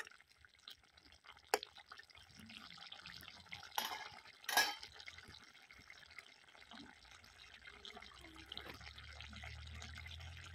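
Chicken curry simmering and bubbling in a steel kadai, with a few sharp clinks of a metal ladle against the pan in the first half. A low hum comes in near the end.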